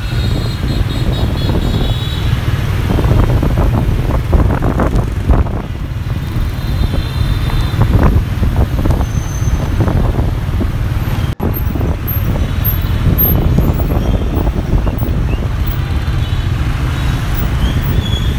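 Road traffic of many motor scooters heard from a moving vehicle among them, with a heavy wind rumble on the microphone.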